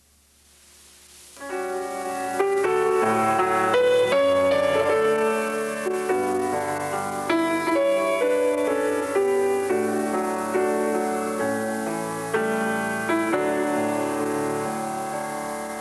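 Instrumental music led by a keyboard playing sustained chords and a melody, coming in about a second and a half in after a brief near silence.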